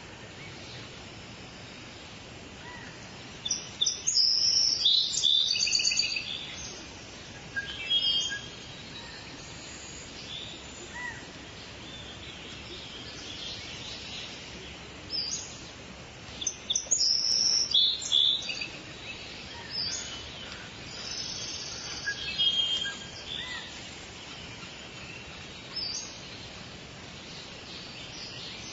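Forest birds chirping and singing over a steady background hiss, with busier, louder bursts of song about four seconds in and again past the middle.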